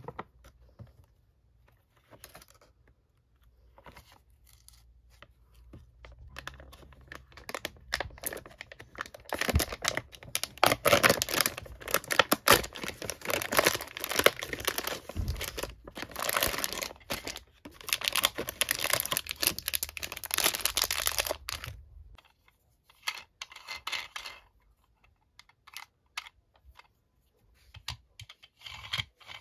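Foil lid being peeled and torn off a plastic blind-box container, with a long run of loud crackling and crinkling through the middle. Lighter taps and clicks of plastic packaging being handled come before and after it.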